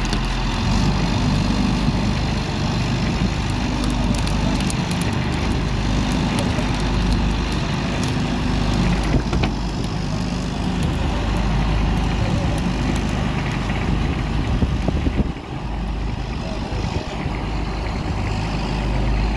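A fishing boat's engine running steadily, with wind and water noise over it.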